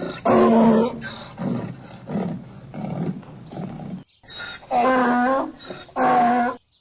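Donkey braying: loud, steady-pitched calls under a second long, in between quieter, rougher drawn-in breaths, with the sound cutting off abruptly twice.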